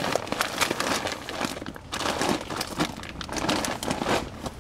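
Irregular crinkling and rustling, a dense run of crackly clicks that keeps going without a break.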